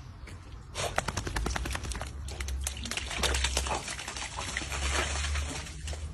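A chocolate Labrador puppy's paws splashing and slapping rapidly through a shallow puddle on asphalt as it runs, a quick patter of wet impacts that starts about a second in and dies down near the end, over a low rumble.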